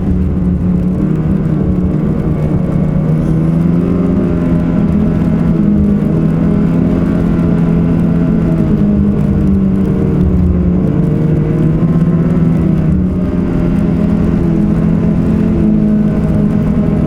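Ski-Doo 850 two-stroke snowmobile engine running at a steady trail speed, its pitch drifting gently up and down with the throttle.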